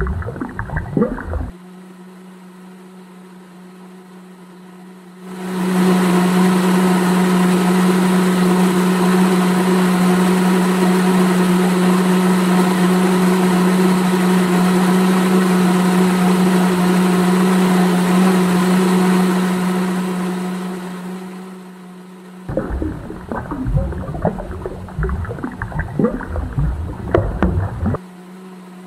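Small electric motor of a miniature cement mixer running with a steady hum for about fifteen seconds, fading in and out. Before and after it, wet concrete slops and splatters as it is poured from a small cup into a form.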